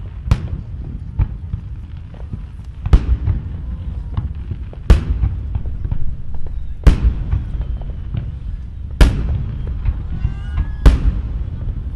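Aerial firework shells bursting in a finale barrage: six sharp booms about two seconds apart over a continuous low rumble and crackle of other shells going off.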